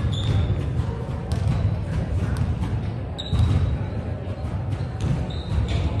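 Basketballs bouncing irregularly on a hardwood gym floor, with a few short sneaker squeaks, over the steady low rumble of a large hall.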